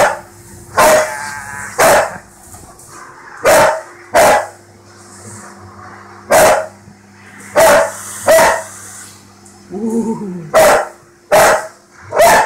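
A dog barking repeatedly: about a dozen sharp barks, roughly a second apart with a few longer gaps, over a steady low hum.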